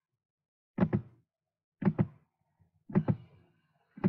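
Computer mouse button clicked about once a second, four times, each click a sharp double tick of press and release, picked up close to the microphone as the map zoom-out button is pressed repeatedly.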